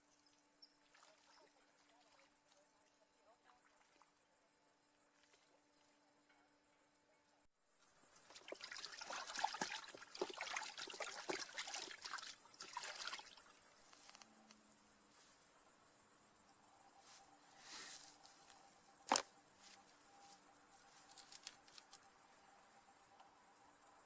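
Crickets chirring steadily in a high, fast pulsing trill. About eight seconds in, several seconds of close rustling and handling noise join them, and a single sharp click sounds later on.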